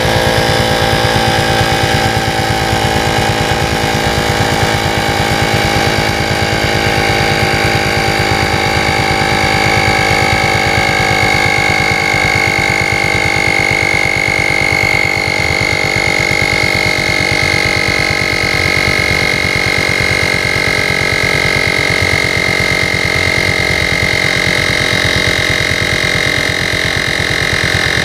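Portable electric tyre inflator's compressor running steadily while pumping up a deflated scooter tyre, a dense mechanical buzz whose pitch sinks slowly as it runs.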